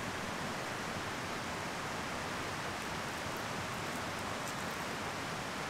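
Creek water running steadily, an even rushing noise.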